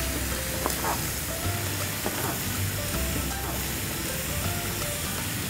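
Chicken wings frying in a pan of hot oil, a steady sizzle, with light background music playing a simple melody over it.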